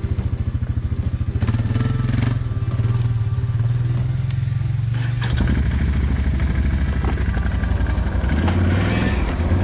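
Off-road bike engine running steadily, its note shifting lower and heavier about five seconds in.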